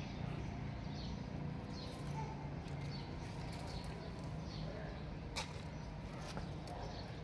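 Outdoor ambience: a steady low hum with small birds chirping in short, high notes about every half second, and one sharp click about two-thirds of the way through.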